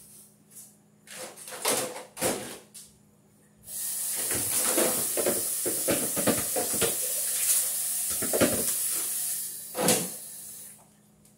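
A few knocks and clatters, then a kitchen tap turned on about four seconds in: a steady spray of running water over crab clusters being rinsed in the sink, with knocks of the shells in the stream. The water shuts off shortly before the end.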